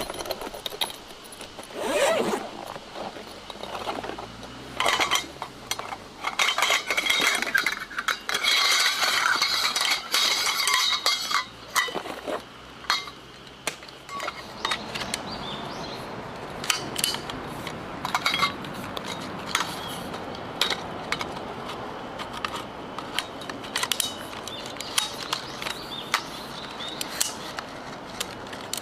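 Things being handled: repeated clinks, knocks and scrapes of hard objects like metal cookware or utensils. About halfway through, a steady hiss sets in underneath.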